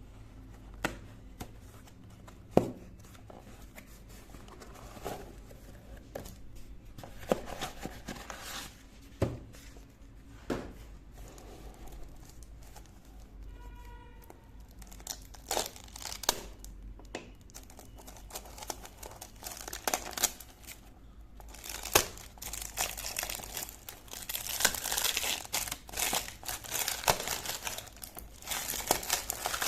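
Packaging being handled and unwrapped: scattered clicks and small knocks, then, from about two-thirds of the way in, steady crinkling and tearing of wrapping.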